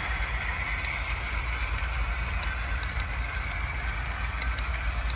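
Model freight train cars rolling past on the track: a steady rolling hiss over a low hum, with irregular sharp clicks from the wheels a few times a second.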